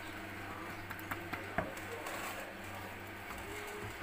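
Quiet room tone: a steady low hum with a few faint, light clicks about a second to a second and a half in.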